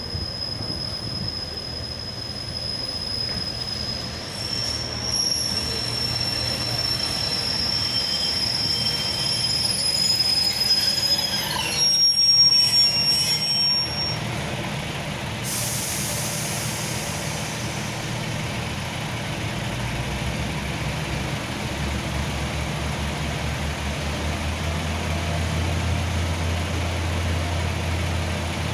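Diesel multiple unit braking into a station platform, with high steady squeals for the first dozen seconds until it comes to a stop. A sharp hiss of air about fifteen seconds in then fades, and the engine idles with a low hum that grows toward the end.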